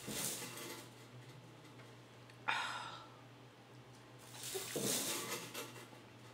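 Water sucked up through a drinking straw in noisy sips, with a sudden sharp breath between them.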